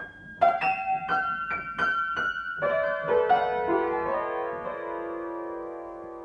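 Piano keys struck one at a time: about six quick notes at changing pitches, then a few lower notes about two and a half seconds in that ring on together and slowly fade.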